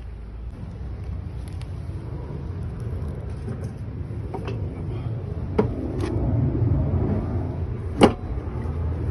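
An engine running steadily in a low rumble that swells a little in the second half, with four sharp knocks, the loudest about eight seconds in.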